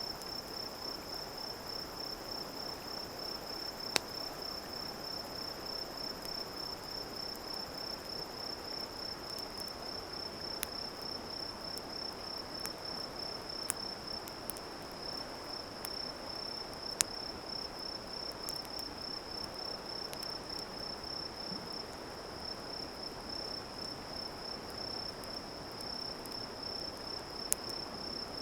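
Crickets chirping in a steady, high, finely pulsing trill, with a few sharp pops from a crackling wood campfire over a soft steady hiss.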